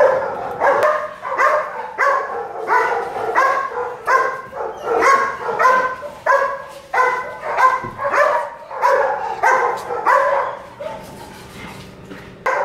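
Belgian Malinois barking over and over, about two short pitched barks a second, dying down near the end.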